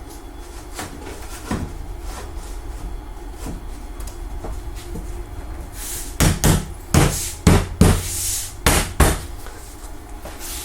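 A low steady hum, then about six seconds in a quick run of about eight loud, sharp knocks and clatters over some three seconds, like things being set down or knocked into place on a workbench.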